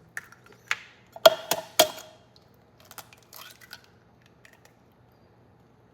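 An egg knocked against the rim of a bowl and cracked open: a cluster of sharp knocks about a second in, then a few fainter clicks of shell on the bowl.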